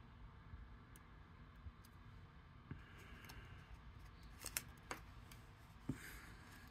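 Near silence, with a few faint clicks and rustles of small paper die-cut pieces being handled.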